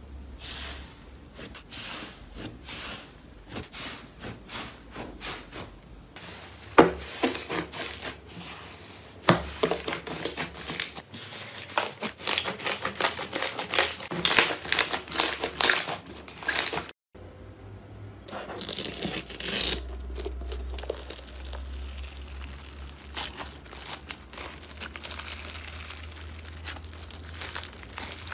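Hands pressing and kneading iceberg slime, its dried crust giving many quick crackles and crinkles. After a break at about seventeen seconds in, a finer, denser crackle of another slime being squeezed follows.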